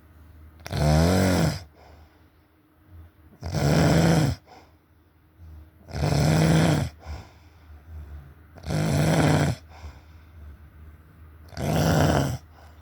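Snoring: five loud snores about every two and a half to three seconds, each lasting about a second, with quiet breathing between.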